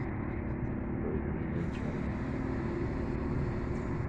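Steady outdoor rumble of city traffic and wind, with a low hum underneath and no single event standing out.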